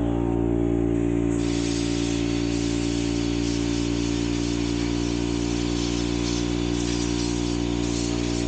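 A machine's steady hum, holding one pitch, with a hiss that joins about a second and a half in.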